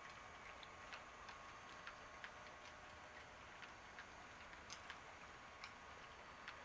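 Faint, irregular clicking of a model freight train's wheels rolling over the track joints, a few clicks a second, over a low steady hiss.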